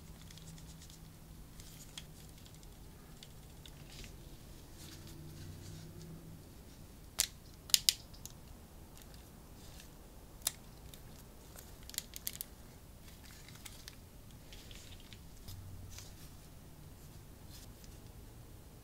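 Scattered sharp clicks and snips from hands working an action figure and its plastic packaging, with a close cluster about seven to eight seconds in and another around twelve seconds, over a faint low hum.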